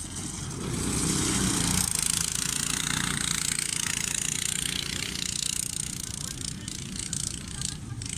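Cyclekart's small engine running hard as the kart passes close on a dirt track, with a wide hiss over it. The sound swells about a second in, then fades slowly as the kart moves away.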